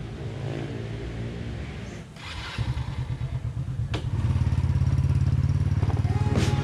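Small motor scooter engine idling, then pulling away and passing close by, its engine note climbing and growing loud about four seconds in. A single sharp click comes just before the engine gets loud.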